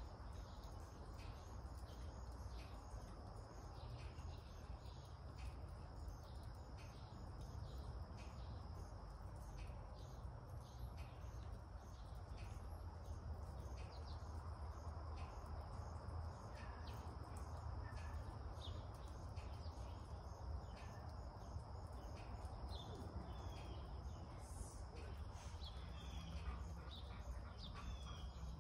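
Quiet outdoor ambience: a steady low rumble under a constant high, thin insect trill, with a few faint bird chirps near the end.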